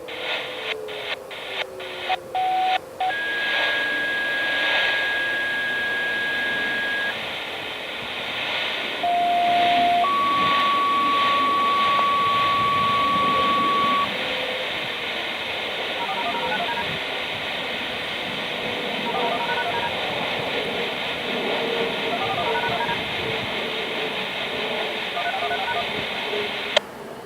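Radio scanner receiving outdoor warning siren activation tones over a hissy dispatch channel. It opens with a few clicks, then gives a long steady beep, then a short lower beep followed at once by a long higher beep, and later a run of short dual-tone digit beeps.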